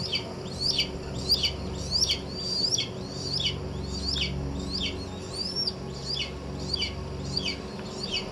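Red-tailed hawk calling at the nest: a rapid series of short high notes, most of them falling in pitch, about two a second.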